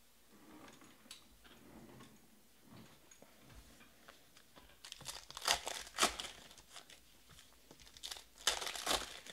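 Foil wrapper of a baseball card pack crinkling and tearing open by hand. Soft handling rustles come first, then two loud crackling bursts, about five seconds in and again near the end.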